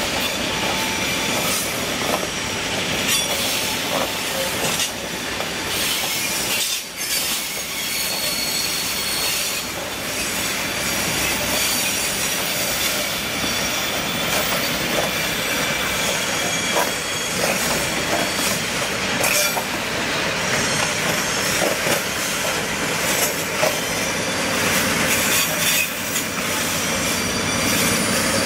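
Loaded freight hopper wagons rolling past close by on a curve, their steel wheels squealing against the rails in steady high-pitched tones over the rumble of the running gear, with scattered clacks and knocks.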